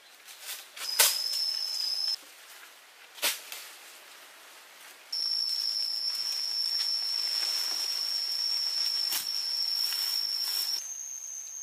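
Cicadas droning: a steady high-pitched whine that breaks off and returns, then shifts to a slightly higher pitch near the end. A few sharp clicks are heard, the loudest about a second in and another about three seconds in.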